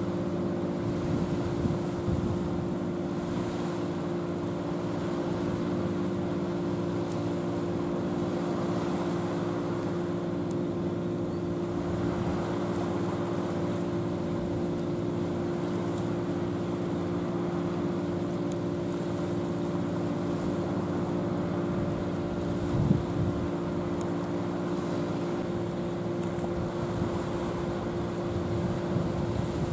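Steady droning hum of a vessel's engine carried across open water, with wind buffeting the microphone in gusts, sharpest about 23 seconds in.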